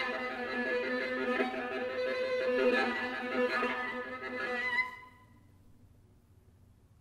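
Solo viola playing, bowed, which breaks off about five seconds in, its last notes ringing briefly.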